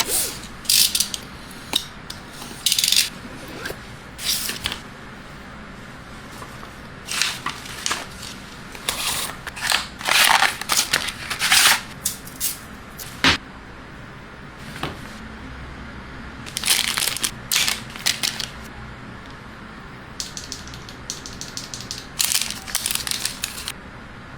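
Irregular bursts of crinkling, rustling handling noise, each a fraction of a second to about a second long, with steady hiss between them.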